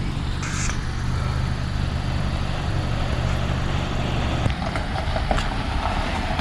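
A concrete pump truck's engine running steadily, a low, even hum with a wash of mechanical noise over it.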